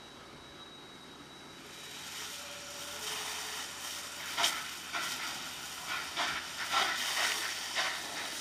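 Fire hoses spraying water onto a burning lorry: a steady hiss of water jets and steam that grows louder about two seconds in. Over it come several sharp cracks and pops from the burning truck in the second half.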